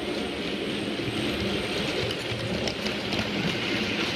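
Model railway Warship diesel locomotive and its train of box van wagons running past on the track: a steady rumble and rattle of small wheels on rail, growing a little louder toward the end as the wagons pass close.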